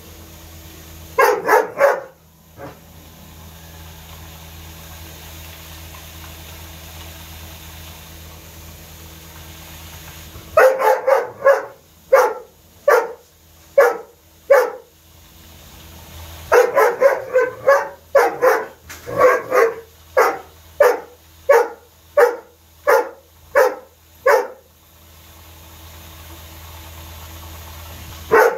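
Doberman barking repeatedly at a wild boar penned behind bars. A few quick barks come about a second in; after a quiet spell, long runs of barks start about ten seconds in, at roughly one to two a second, then it falls quiet before one more bark at the end.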